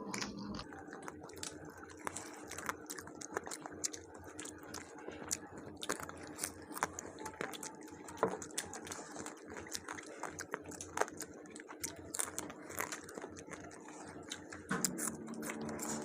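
Close-up eating sounds of people chewing tandoori chicken and naan: scattered small wet clicks and mouth smacks at an irregular pace, over a faint steady hum.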